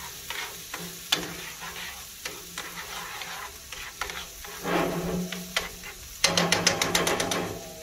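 Grouper fillets sizzling on a wood lump charcoal grill, with scattered crackles. Near the end comes a louder rapid run of clicks.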